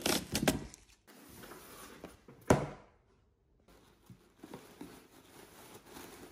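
A blade slitting the packing tape on a cardboard box, a quick run of crackling clicks in the first second. About two and a half seconds in comes one sharp knock, the loudest sound, and then faint rustling of tissue paper with a few small ticks as the wrapped contents are handled.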